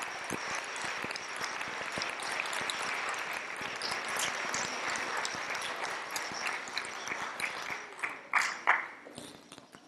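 Audience applauding, a dense patter of clapping that fades out near the end, with two louder sharp claps or knocks as it dies away.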